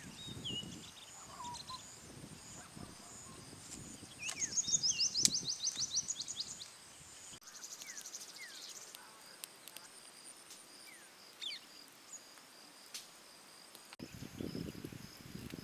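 Birds chirping over a steady insect hum, with a loud, rapid trill of high chirps about four seconds in that lasts two to three seconds. Low rustling in the first half and scattered sharp clicks.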